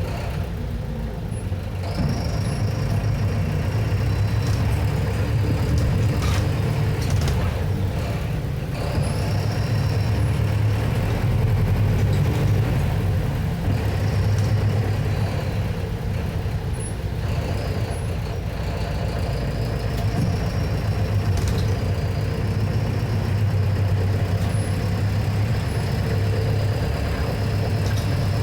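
Mercedes-Benz OF-1721 BlueTec 6 bus's four-cylinder diesel engine running, with a steady low drone. A high whine comes in and fades several times, and the engine grows louder each time it does.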